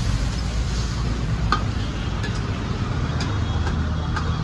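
Steady low rumble of street traffic, with a few sharp clinks of a cooking utensil against a pan as chicken is cooked.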